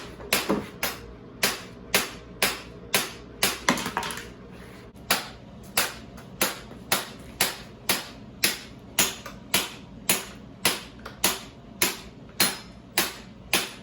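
Repeated hammer blows, about two a second, with a short pause about four seconds in.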